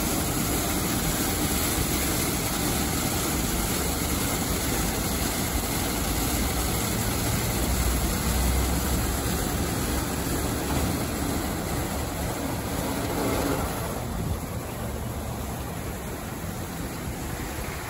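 Steady rushing machine noise of a gantry car wash running. The higher hiss falls away about 14 seconds in, leaving a lower rumble.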